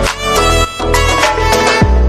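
Background music: sustained melodic tones over deep bass hits.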